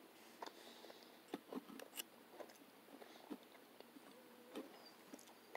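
Near silence with faint, scattered small clicks and mouth sounds of a person chewing food.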